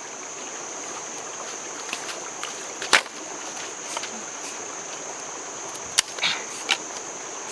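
Dry firewood sticks knocking and clattering as they are laid on a pile: a few sharp wooden knocks, the loudest about three seconds in and another near six seconds. Under them runs a steady high-pitched hiss of the forest stream background.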